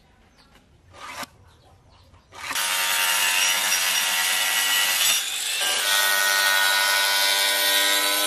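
Angle grinder with a saw blade cutting through a wooden plank, starting about two and a half seconds in; after a short break, an angle grinder runs against a wooden board with a steady motor whine.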